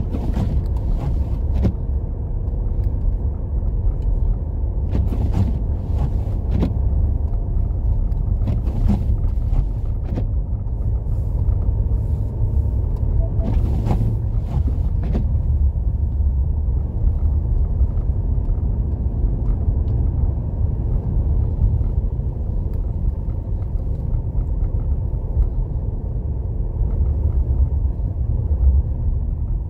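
Steady low rumble of a car driving on a snow-covered road, heard from inside the cabin. Scattered sharp clicks and knocks come in the first half, several of them while the windshield wipers sweep.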